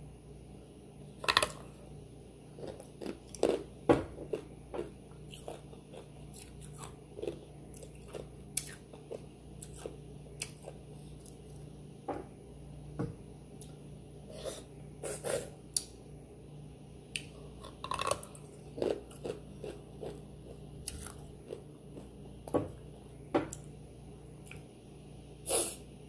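Close-up mouth sounds of a person biting and chewing something crunchy. Sharp crunches and clicks come irregularly, about one a second, with the loudest bites near the start and near the end.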